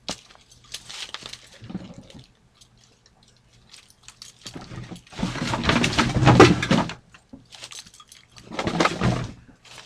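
Rustling, crackling handling noise, with a loud burst of about two seconds in the middle and a shorter one near the end.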